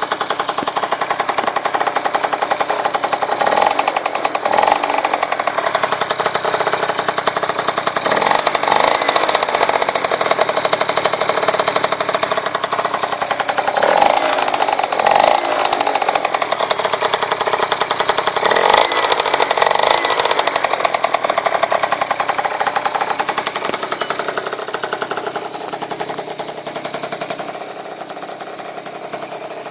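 Vehicle engine running with a rapid, rattling pulse, revved up several times, about 4, 9, 14 and 19 seconds in, and dropping back between revs; it settles lower near the end.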